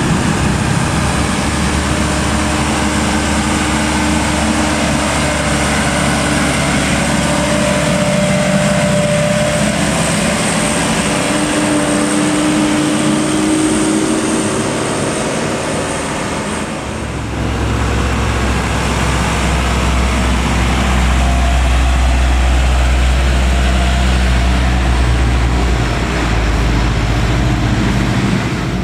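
Diesel engine of a Mitsubishi Fuso Canter light truck, heavily loaded with wooden pallets, pulling uphill and passing close by. About seventeen seconds in, the sound changes to a second truck's engine, with a deeper and louder rumble.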